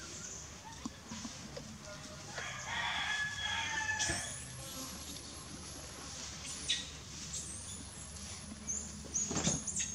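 A rooster crows once, about two and a half seconds in, lasting a second and a half. Thin high whistling tones follow twice, and there is a sharp chirp near the end.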